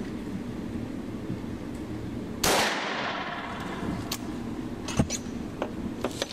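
A single gunshot about two and a half seconds in from an H&R shotgun firing through an X-Caliber adapter sleeve, with a short ring-out, followed by a few light clicks.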